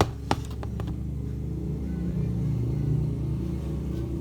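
Two sharp clicks about a third of a second apart, the laptop being handled, over a steady low rumble.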